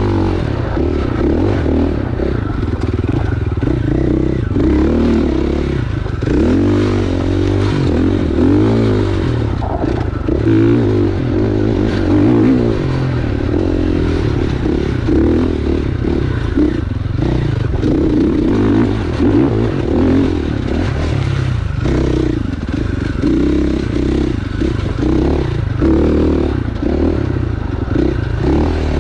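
Husqvarna FX 450 four-stroke single-cylinder dirt bike engine pulling along a rough singletrack, its pitch rising and falling over and over as the throttle is opened and rolled off. Frequent knocks and rattles from the bike going over the bumpy trail.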